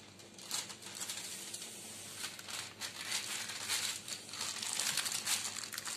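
Parchment paper crinkling and crackling under a wooden rolling pin as dough is rolled out over it on a baking tray, louder in the second half.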